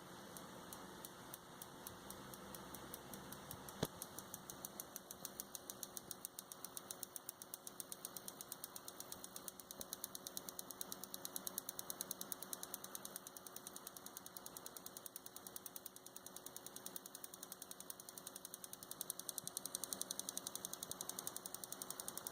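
Seasonic SS-500HM computer power supply making a fast, regular clicking over a faint steady hum. The clicks come about twice a second at first and quicken to four or five a second, with one louder click about four seconds in.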